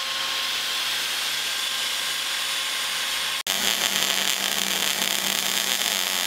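A corded rotary tool running steadily at speed, sanding rust off a steel suspension pivot tube. About three and a half seconds in it cuts abruptly to MIG welding: a steady, slightly louder welding hiss with a low hum.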